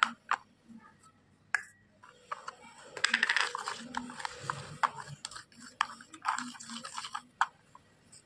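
A white plastic spatula stirring and scraping a gritty slate-pencil-powder paste in a small plastic toy pot. A few sharp plastic clicks come in the first two seconds, then a long run of rapid gritty scraping and clicking from about three seconds in until shortly before the end.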